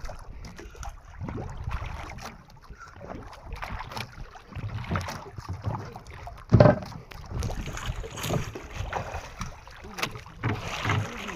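Water sloshing against a small fishing boat's hull, with wind on the microphone and one loud knock about six and a half seconds in.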